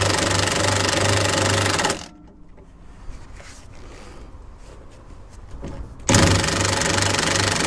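Impact gun hammering on a rusted rear drop-link nut for about two seconds, stopping, then starting again about six seconds in. The nut will not break free: it has rusted solid onto the threaded stud, so the stud just spins in the drop link's ball joint.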